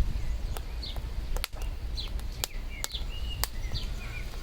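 Hot charcoal crackling under vegetables roasting on a grill rack, with sharp snaps and pops scattered through, several close together about a second and a half in. A bird chirps over and over, a short high note about twice a second, over a steady low rumble.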